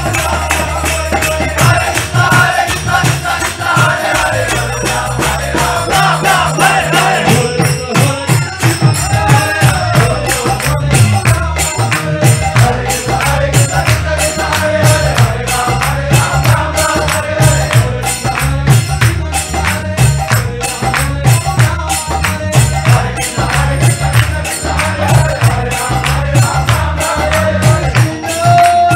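Background devotional kirtan music: chanting voices over a steady beat of jingling hand percussion and a low sustained accompaniment.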